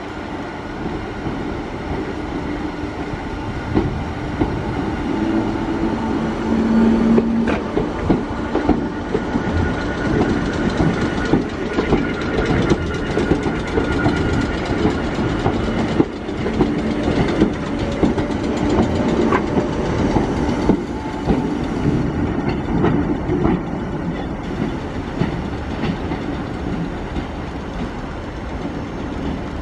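Passenger multiple-unit trains moving slowly through a station, their wheels clacking over rail joints and points, with a steady drone of motors underneath. One of the trains is a Merseyrail Class 508 electric unit.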